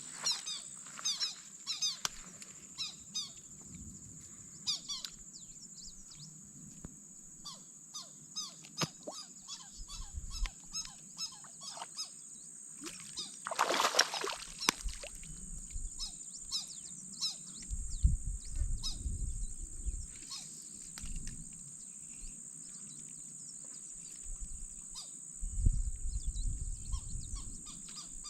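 Open marshland ambience: many small birds chirping all through, over a steady high-pitched buzz. There is one brief, louder rushing noise about halfway, and low rumbles twice in the second half.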